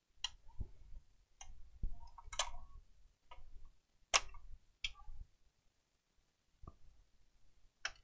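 Scattered sharp clicks and taps of plastic and metal as hands and a small screwdriver work on an opened PlayStation 4 around its Blu-ray drive, a handful of them at uneven intervals, the loudest about two and four seconds in.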